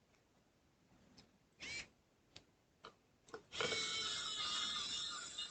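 Electric screwdriver driving in heatsink screws: a short spin, a few light clicks, then a steady run of about two seconds near the end.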